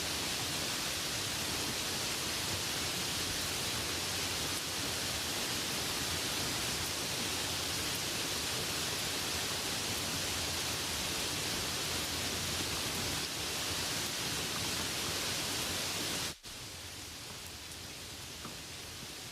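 Steady light rain falling, an even hiss of drops. Near the end it cuts out for an instant and comes back softer and less hissy.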